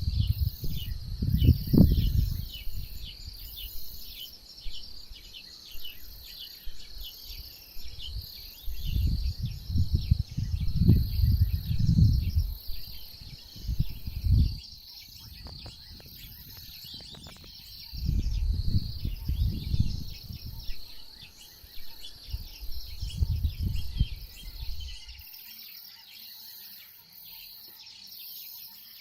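Steady outdoor chorus of crickets and other insects, a high rapid chirring that goes on throughout. Bursts of low rumbling on the microphone come and go over it: near the start, in the middle, and again for several seconds before stopping near the end.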